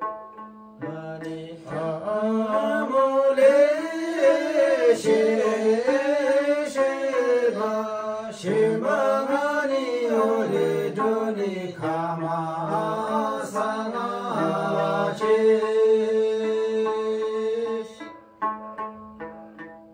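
Several men singing a Tamang selo folk song together, accompanied by a plucked tungna, a small skin-faced long-necked lute. The voices come in about a second in and hold one long note near the end. They then stop, leaving the lute plucking alone for the last two seconds.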